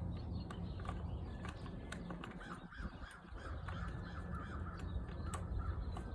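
A bird calling in a quick run of short repeated notes, over a low steady hum, with a few faint sharp clicks.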